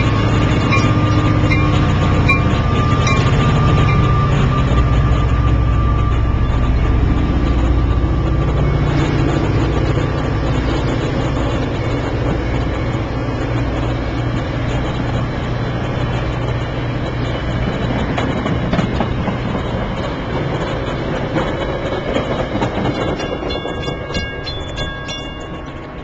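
EMD F40C diesel locomotive running loud as it pulls its train away, followed by the bilevel coaches rolling past; the rumble slowly fades as the train leaves. Near the end a grade-crossing bell rings rapidly.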